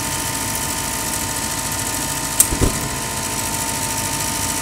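Gas furnace draft inducer fan motor running with a steady hum and a light rattle. About halfway through comes a sharp click and a short low thump as the gas valve opens on an ignition try in which the main burners fail to stay lit.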